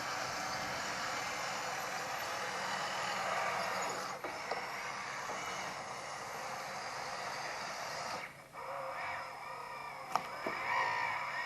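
Hydraulic pump and electric motors of an RC hydraulic construction model running steadily with a whine. About two-thirds of the way in the sound drops briefly, then comes back with the pitch shifting up and down as the hydraulics are worked, with a sharp click shortly after.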